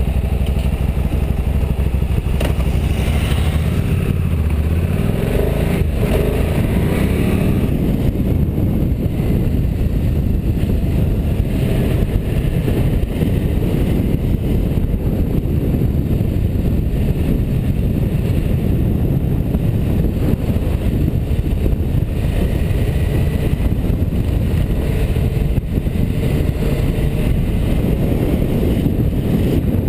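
Motorcycle riding along at road speed: the engine running under a steady, dense rush of wind on the microphone.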